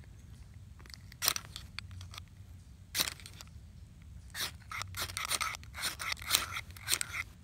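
Ferro rod of a Lightning Strike fire steel struck again and again with its sliding striker: sharp rasping scrapes, two single strokes and then a quick run of about ten strokes from about four seconds in. The damp birch bark tinder needs many strikes before it catches.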